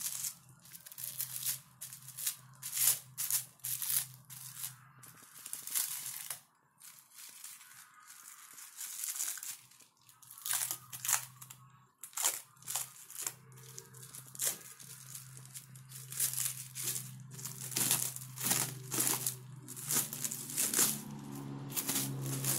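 Plastic packaging film being peeled, torn and crinkled off aluminium extrusion profiles, in irregular crackling rustles.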